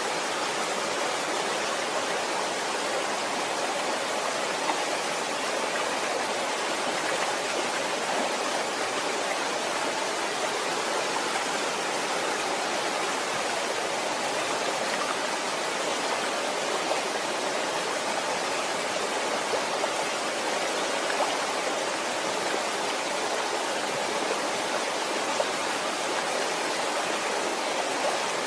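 Waterfall: falling water rushing in a steady, even wash, with now and then a slightly louder splash.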